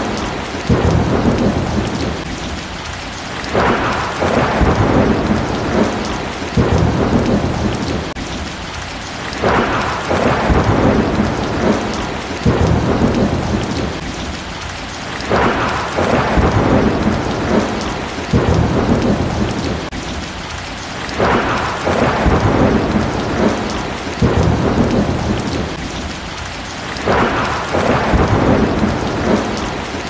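Heavy rain pouring steadily, with low thunder rumbling underneath. The rain swells louder in surges that come back about every six seconds.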